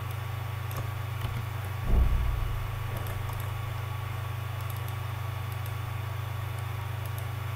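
Steady low buzzing hum of the recording's background, with a few faint clicks and a brief low thump about two seconds in.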